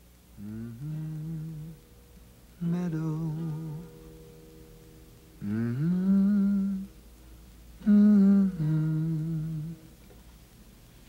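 A low voice humming a slow, wordless melody in four separate phrases, each sliding up into a held note with a slight waver.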